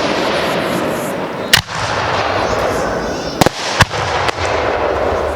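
Fireworks display: about four sharp bangs of shells bursting, the first about a second and a half in and three more close together past the middle, over a steady hissing noise.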